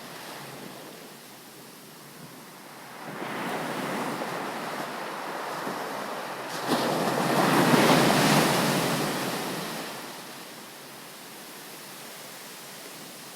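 Sea waves breaking on a beach. One wave swells in about three seconds in, then a larger one crashes suddenly about seven seconds in and washes out over the next few seconds.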